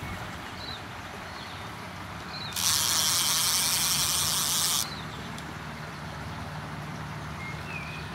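A loud hiss lasting about two seconds that starts and stops sharply, over a steady low rumble of city traffic and a few faint bird chirps.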